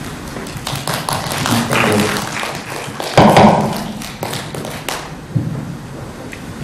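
Microphone handling noise: a run of taps and thuds, loudest about three seconds in.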